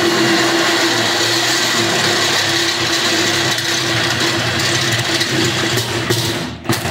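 Cordless drill running steadily at full speed, a quarter-inch bit boring a pilot hole through the steel side wall of a Yoder YS640 pellet smoker. The motor stops near the end, with a few clicks as the bit comes out.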